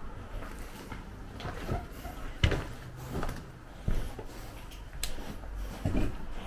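Footsteps scuffing and crunching over rubble and debris, with scattered knocks; the loudest is a sharp knock about two and a half seconds in.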